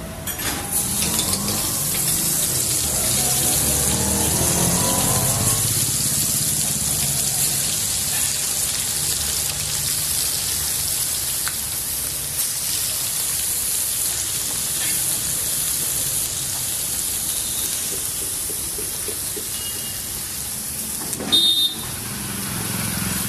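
Fish frying in hot oil, a steady sizzling hiss, with a brief clatter near the end.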